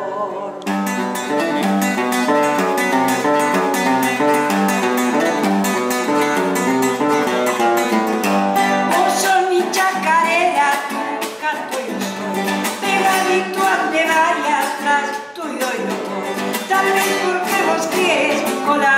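Acoustic guitar strummed in the quick rhythm of a gato, an Argentine folk dance, with a woman's voice singing over it from about halfway in.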